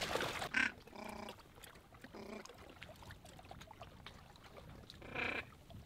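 Four short, buzzy duck-like calls, spaced apart: about half a second in, about a second in, just past two seconds, and the loudest just past five seconds.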